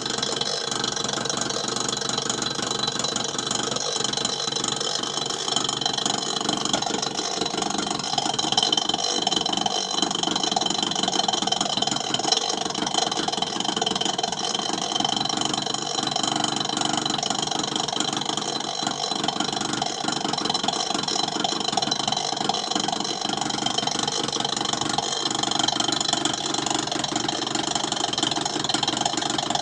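Refrigerator compressor running with a steady hum and a rapid knocking rattle, in a fridge that no longer cools: the sign of a failed compressor that needs replacing.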